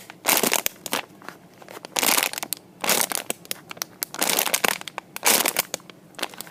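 Plastic packaging of a squishy toy crinkling as it is handled, in several short spells with pauses between.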